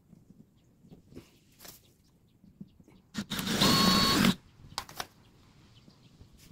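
Cordless drill running briefly, its bit boring a hole into the plastic rim of a cooler: one burst of about a second with a steady motor whine, a little over three seconds in.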